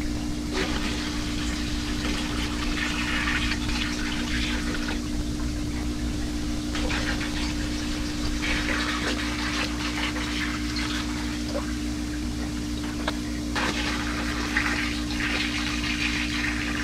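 Tap water poured from a 5-gallon plastic bucket into an aquarium, splashing and bubbling into the tank water in three long pours. A steady low hum runs underneath.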